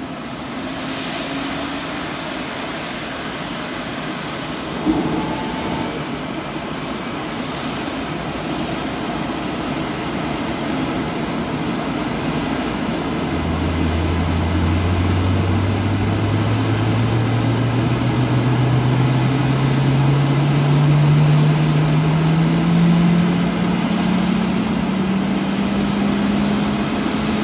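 Blue Angels F/A-18 Super Hornet jets on the ramp at engine start: a steady rushing engine noise, joined about halfway through by a low hum that rises slowly and steadily in pitch as an engine spools up. A single sharp knock about five seconds in.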